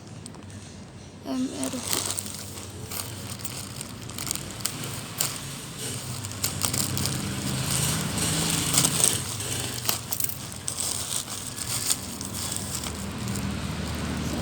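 Contact lens packaging crinkling and rustling by hand, with many small irregular clicks and crackles starting about a second in.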